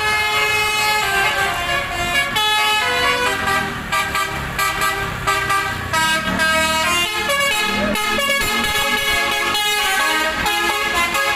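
Telolet multi-tone air horns on tour buses playing quick stepping tunes, several horns sounding over one another, with bus engines running underneath.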